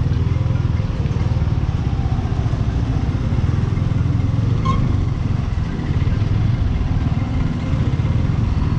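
Motorcycle engine running steadily at road speed while riding, a continuous low rumble.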